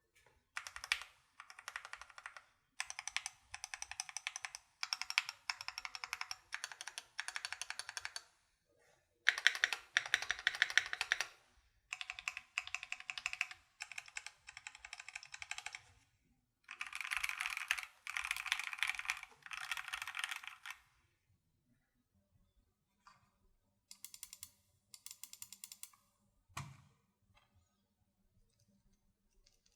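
Typing on a Keychron Q1 prototype mechanical keyboard fitted with factory pre-lubed Gateron G Phantom Red linear switches. The keystrokes come in fast runs of a second or two, with short pauses between them. After a longer pause about two-thirds of the way in, only a few sparse short bursts follow, along with one dull knock.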